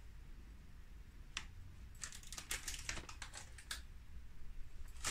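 Faint, irregular light clicks and ticks as shredded mozzarella cheese is sprinkled by hand onto a ceramic plate of noodles, with a low steady hum underneath.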